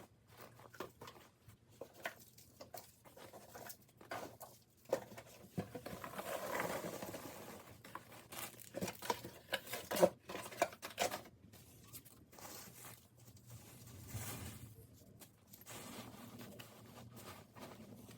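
Irregular handling noise: crinkling and rustling of bags and packing material with scattered clicks and knocks, including a longer rustle about six seconds in.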